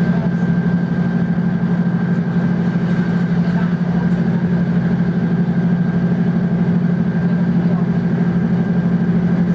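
Diesel multiple unit's underfloor engine running steadily, a constant low drone with a thin steady high whine above it.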